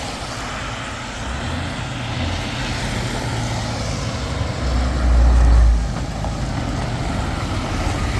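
A vehicle running on the move, a steady noisy drone with a deep rumble that swells for about a second midway.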